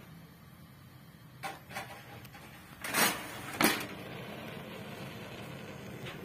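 Metal grill drawer of a Rinnai two-burner gas table stove slid shut: two light clicks, then two loud knocks as it closes, followed by a steady hiss.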